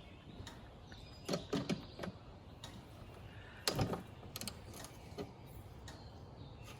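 Socket wrench with a 13 mm socket loosening a windshield wiper arm nut: scattered metal clicks and short runs of ratchet ticks, the loudest cluster a few seconds in.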